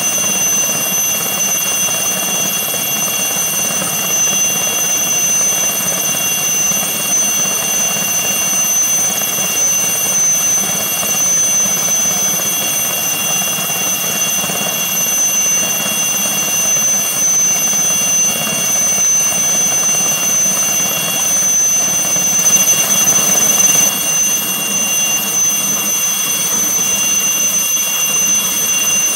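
Aérospatiale SA 315B Lama helicopter running on the ground with its rotors turning. Its Turbomeca Artouste IIIB turbine gives a steady high-pitched whine of several tones over an even rush of engine and rotor noise.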